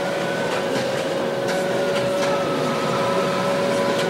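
Delta 3D printer's stepper motors whining as the print head moves over the bed, a steady set of tones that drift slightly in pitch, with a few faint clicks.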